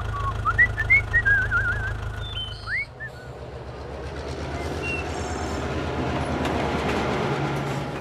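For the first three seconds an engine runs with a steady low hum, with short high whistling chirps over it. It then gives way to the sound of a train running along the rails, slowly growing louder.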